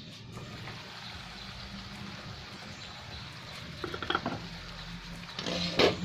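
Meat for igado cooking in a pan with a steady hiss. A few light utensil knocks against the pan come about four seconds in, and a louder clatter comes near the end.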